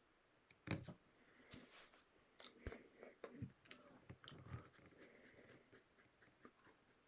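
Near silence in a small room, broken by faint scattered clicks and soft rustles, the loudest just under a second in.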